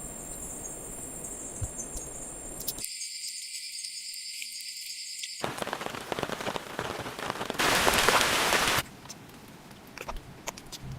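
Insects chirping steadily in high, even tones, then after a cut a dense patter of rain that swells into a loud rushing burst for about a second before thinning to scattered drips.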